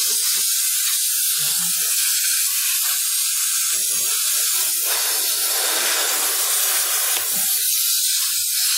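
Air hissing steadily out of a punctured truck tyre, with a fuller hiss for about two seconds near the middle as the plug tool works the hole, and a few faint knocks.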